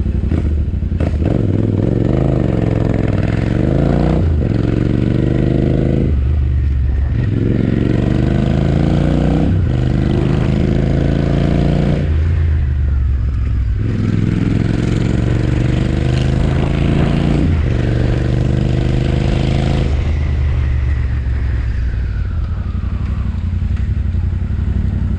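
Royal Enfield Interceptor 650's parallel-twin engine and exhaust under way, rising in pitch through the gears with a brief drop at each shift, several times over, then easing off and falling in pitch near the end.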